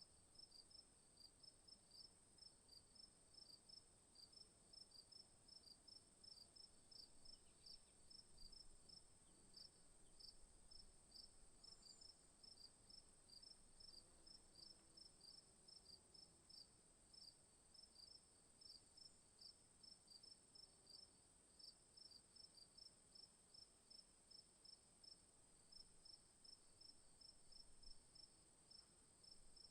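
Crickets chirping faintly: a steady high trill with a pulsed chirping beneath it, about three chirps a second, never pausing.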